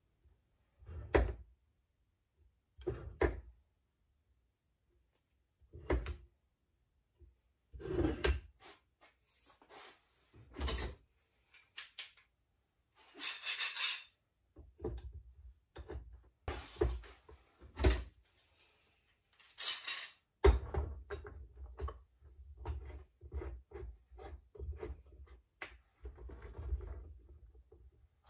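Hands knocking glued end-grain hardwood blocks into place on a workbench, single sharp knocks a second or two apart. Then long metal bar clamps clank, slide along their bars and rattle as they are fitted across the board and tightened, the clatter coming thick and fast in the last third.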